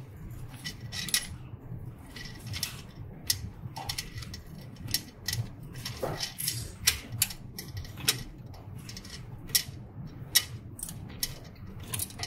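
A string of irregular, sharp small clicks and taps from hands working plastic ink dampers and their plastic damper holder on a UV printer's print-head carriage, over a low steady hum.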